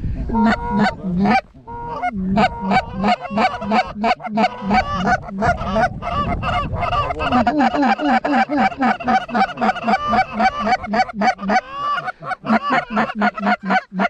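A flock of Canada geese honking and clucking at close range, a dense overlapping run of short calls, several a second, without a break.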